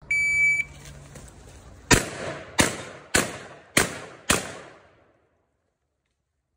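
Electronic shot timer gives a short, steady high start beep, then about a second and a half later a shotgun fires five times in quick succession, roughly one shot every 0.6 seconds, each with a short echo.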